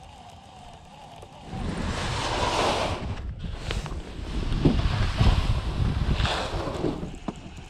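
Wind buffeting the microphone, mixed with clothing rustle as a person climbs into a canoe from the bank. It starts about a second and a half in and ends with a few light knocks.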